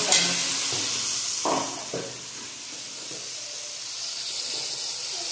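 Cumin, ginger and mustard paste sizzling in hot oil in a steel kadai, a steady frying hiss. It opens with a sharp knock of the steel spatula, and the sizzle dies down over the first two seconds.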